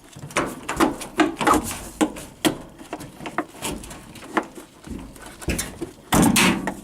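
Coiled steel washer suspension spring and its metal clip clinking and scraping against the washer's sheet-metal frame as it is worked into a tight mounting point, a run of irregular clicks and knocks with a louder clatter near the end.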